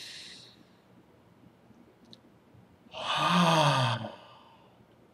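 A man's deep breath in through the nose, then about three seconds in a voiced sigh out through the open mouth, falling in pitch: a slow breath of a breathing exercise.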